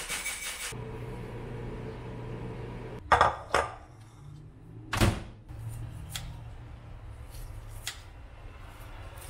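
A microwave oven starts humming steadily about a second in as it heats instant rice. About three seconds in come two sharp knocks and then a third, as a bowl of rice is set down on the stone counter, followed by a few lighter clicks over a fainter hum.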